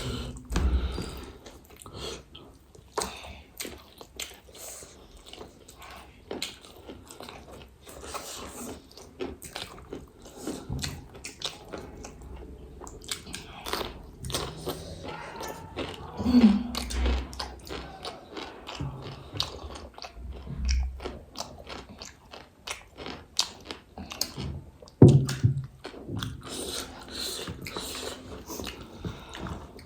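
Close-up biting and chewing of crunchy pani puri shells: a steady run of crisp crunches, with louder bites about sixteen and twenty-five seconds in.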